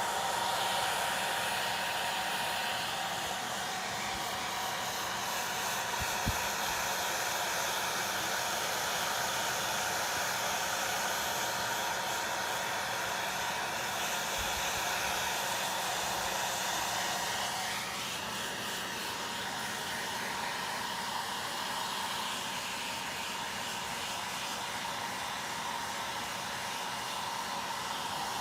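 Hand-held hair dryer running steadily, blowing air; its tone shifts slightly about two-thirds of the way in.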